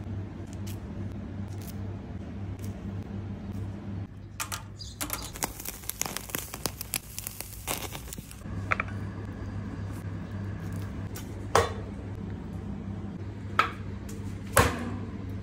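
Kitchen sounds over a steady low hum. From about five seconds in, octopus and pepper kebabs crackle and sizzle over a charcoal fire for about three seconds. A few sharp knocks come near the end.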